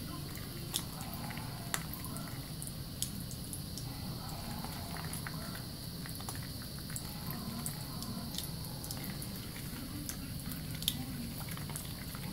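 Soapy hands squishing and rubbing a wet bar of soap, foam making many small wet clicks, over a tap running steadily into a sink.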